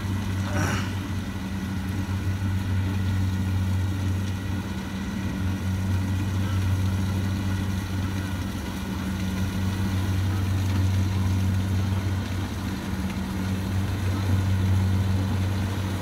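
Kubota DC70 Plus combine harvester's diesel engine running steadily with an even low hum as it cuts flattened, lodged rice.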